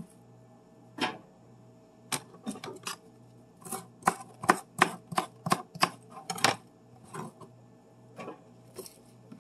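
Kitchen knife chopping celery on a cutting board: sharp, irregular knocks of the blade hitting the board, quickening into a run of about a dozen cuts midway, then a few scattered knocks near the end.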